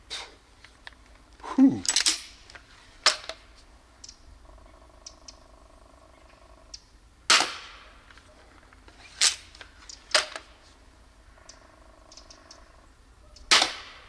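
Adder repeating pistol crossbow (130 lb) being shot and re-cocked: about seven sharp snaps and clacks spread over the span, from the string releasing the bolts and the cocking slide being worked between shots.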